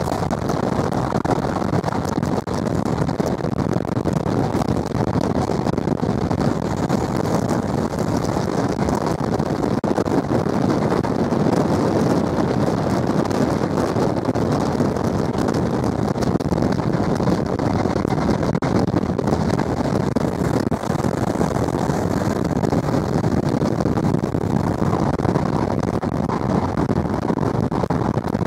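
Steady running noise of an Intercity 125 train moving along the line, mixed with a rush of wind on the microphone held out of the train's window.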